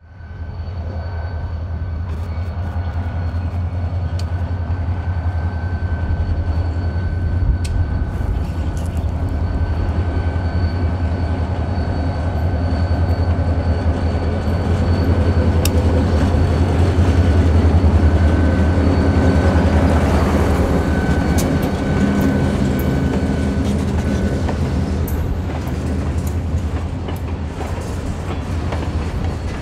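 GMD SD40 diesel-electric locomotive, its EMD 645 two-stroke diesel engine running with a deep steady drone as it approaches and passes, loudest a little past halfway, while pulling a long train of covered hopper cars. The hopper cars then roll by.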